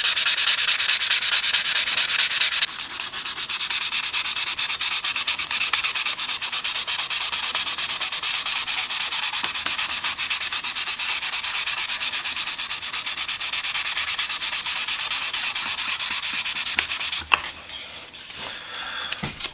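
Fine-grit wet sandpaper rubbed in fast, even strokes over a brass Zippo lighter shell, a steady rasping. It gets a little quieter about three seconds in and stops near the end with a couple of light knocks.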